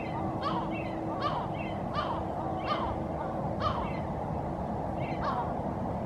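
A gull giving six short harsh calls, each dropping a little in pitch, mostly about three-quarters of a second apart with a longer pause before the last. A steady low hum and a low rumble run underneath.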